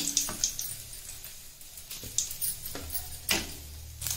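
Appalam (papad) frying in hot oil in a kadai, with faint scattered crackling, and a few clinks and scrapes of a steel slotted spoon against the pan.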